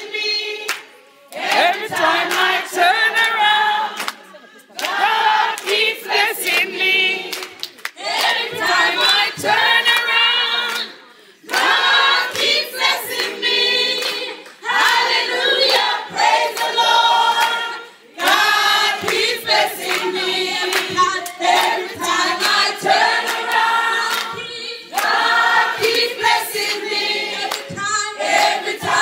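A group of voices singing together, in sung phrases of a few seconds with brief breaks between them.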